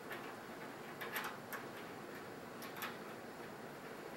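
A few faint, light metallic clicks as a small steel locknut is threaded by hand onto a Romex cable connector in the sheet-metal top of a vent hood.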